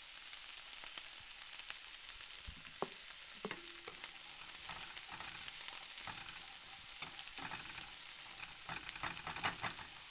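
Diced red onion sizzling in a nonstick skillet on a gas burner as it starts to brown. A spatula scrapes and stirs through the pan, more busily near the end.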